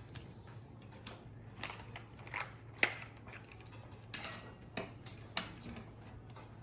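Irregular small clicks and light taps from hands working on a laptop, the sharpest a little before the middle, over a faint steady low hum.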